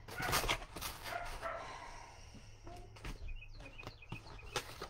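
A dog barking in a room, with paper and cardboard rustling as a box is handled.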